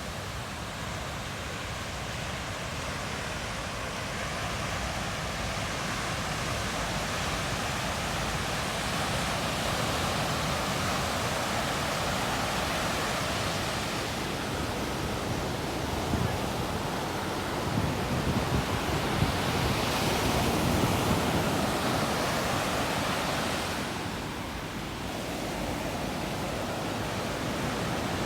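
Ocean surf breaking on a sandy beach: a steady wash of waves that swells and ebbs slowly, with some wind on the microphone.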